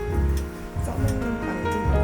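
Background music: pitched instrumental tones over a bass that pulses about once a second.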